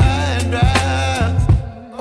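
Background song: a voice singing over bass and drum beats, the music dropping away briefly near the end before coming back.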